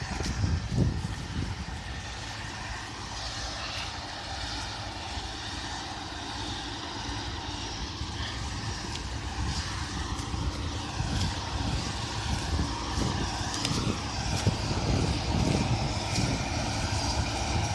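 Combine harvester running as it cuts oilseed rape, a steady drone with a slightly wavering whine, heard across the field. Wind buffets the phone microphone in low thumps, and dry stubble rustles underfoot.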